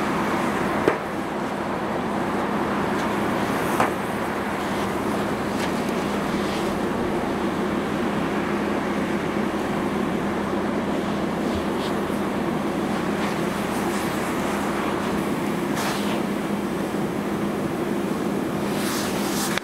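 A fire hose hisses steadily as it sprays water onto a burning car, over the steady drone of a fire engine's pump. Two sharp pops come about a second in and about four seconds in.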